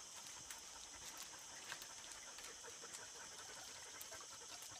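Quiet outdoor ambience: a steady high-pitched buzz, with scattered light clicks and ticks.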